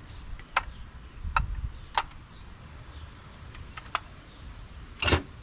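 Sharp metallic clicks and clinks of 727 automatic transmission internals being handled and set on a metal bench: about six separate ticks spread out, then a louder clatter about five seconds in.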